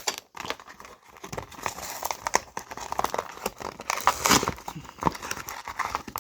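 Plastic toy packaging and Beyblade parts being handled, with crinkling and irregular small clicks and rattles throughout.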